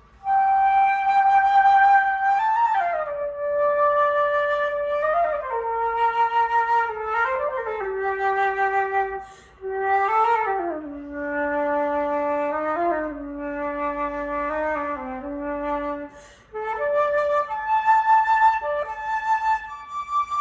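Concert flute playing alone: a slow melody of long held notes that step mostly downward, with short breaks for breath about a third of the way in and again about four-fifths of the way in.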